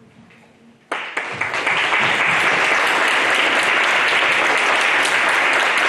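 Audience applauding, breaking out suddenly about a second in and keeping up steadily.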